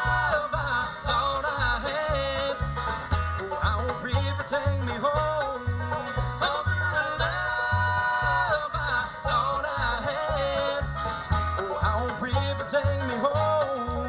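Live bluegrass band playing, with banjo, mandolin and acoustic guitars over an upright bass picking about two notes a second. Long held notes ring near the start and again around eight seconds in.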